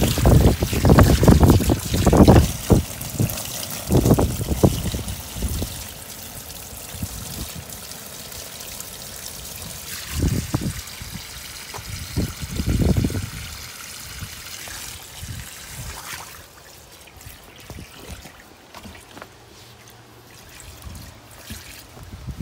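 Water from a garden hose pouring and splashing into a pond lined with plastic liner, a steady trickling hiss. Loud low rumbles come and go over the first few seconds and again about ten seconds in.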